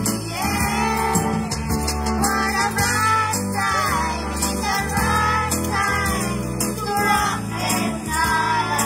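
Children's choir singing a Spanish Christmas carol (villancico) through microphones over a steady instrumental accompaniment, with a tambourine and small hand shakers jingling along.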